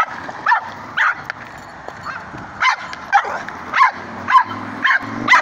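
A Cavapoo barking in short, high yips, about two a second, in excitement that the owner tries to calm.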